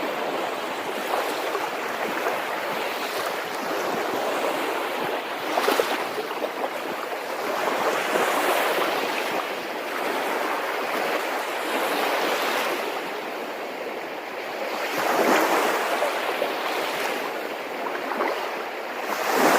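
Waves washing in: a steady rush of water that swells every three to four seconds.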